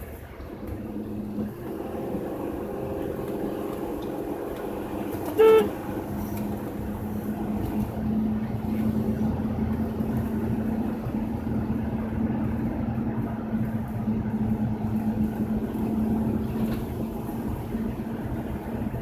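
Steady engine and road noise heard from inside a moving car, with a constant low hum. About five seconds in, a single short car-horn toot, the loudest sound.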